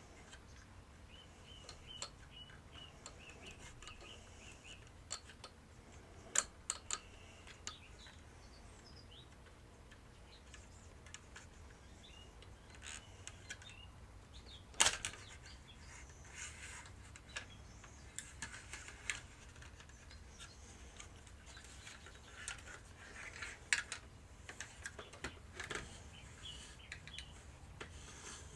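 Quiet, scattered clicks and scrapes of a screwdriver prying at the hard plastic of a vintage toy helicopter's rotor mechanism to release a clip. A sharper click comes about 15 seconds in, and there are faint high squeaks between the clicks.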